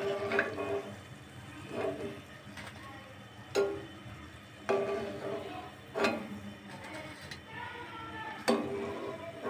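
A perforated steel skimmer clinking against the rim of a steel kadai and bowl several times, a second or so apart, each strike ringing briefly. It is lifting fried dahi vadas out of hot oil, which sizzles faintly in between.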